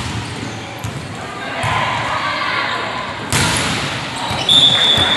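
Volleyball hit back and forth in a rally in a large, echoing gym: sharp smacks of hands on the ball, the loudest about three seconds in, over players' shouts and voices.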